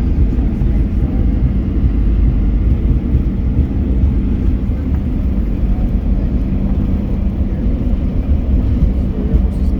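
Steady low rumble inside the cabin of a Boeing 737-800 airliner, its jet engines and airflow running evenly.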